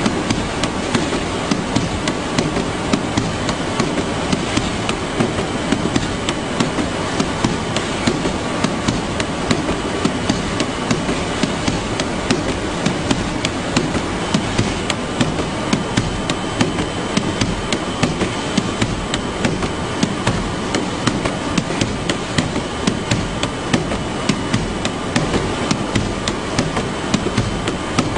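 Cardboard parcel tumbling over and over on a running conveyor belt in a parcel-sorting machine, knocking irregularly several times a second. The knocks sit over a steady conveyor machinery noise with a faint high whine. The box is stuck, rolling in place against the belt's side wall.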